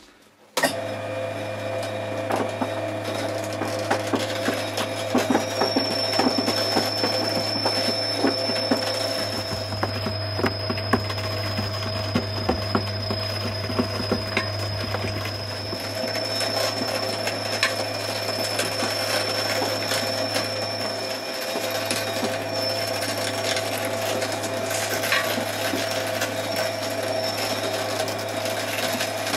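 Twin-shaft shredder running steadily, its motor humming while the cutters chew through Kinetic Sand with scattered clicks and crackles. It starts just after the beginning, and a faint high whine comes in about five seconds in and fades out near the three-quarter mark.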